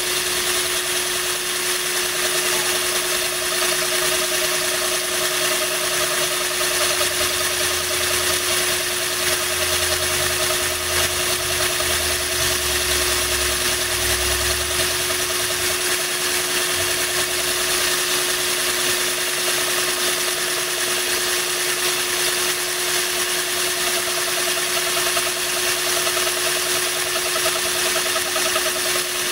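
Power drill running steadily, its bit grinding into the side of a glass bottle, with a steady hiss of water pouring onto the cut to cool it. A low rumble swells for several seconds around the middle.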